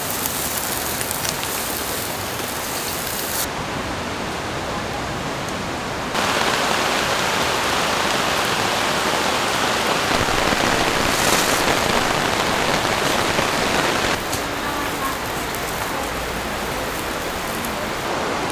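Steady hiss of meat skewers sizzling on a charcoal grill, cut to a louder stretch of heavy rain pouring from about six seconds to about fourteen seconds in, then back to the sizzle of the grill.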